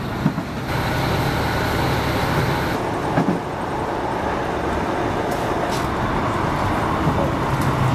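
Passenger train running at speed, heard from inside the carriage: a steady rumble of wheels on the rails whose tone shifts about a second in and again near three seconds, with a few faint clicks.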